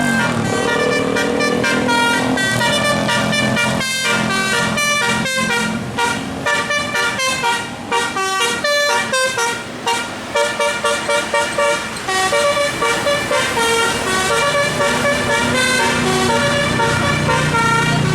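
Bus 'telolet' musical air horn playing a tune over the bus's running engine. The notes come short and quick, stopping and starting several times a second through the middle, with longer held notes near the end.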